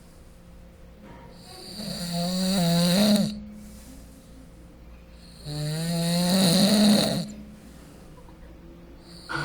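Snoring: two long snores about four seconds apart, each rising in pitch as it goes, with quieter breathing between them and another snore starting near the end.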